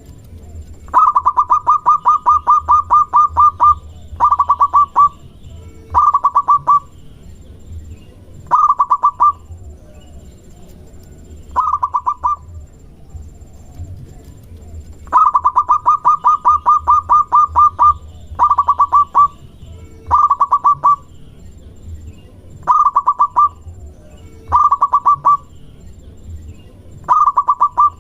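Zebra dove (perkutut) calling in rapid runs of short staccato coos. Two long runs of about three seconds come near the start and about halfway, and shorter runs of under a second repeat every couple of seconds.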